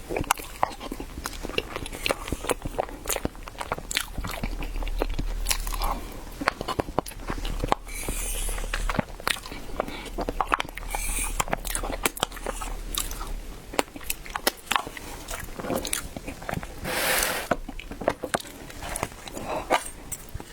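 Close-up eating sounds: biting and chewing of chilled ice bread, with many sharp, wet mouth clicks coming irregularly.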